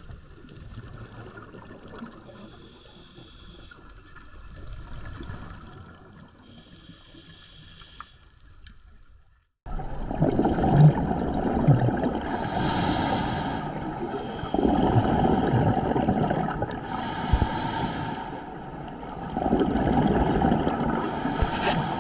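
Underwater sound picked up through a camera housing: a scuba diver's regulator breathing, with exhaled bubbles gurgling in swells every two to three seconds. It drops out briefly about ten seconds in and comes back louder.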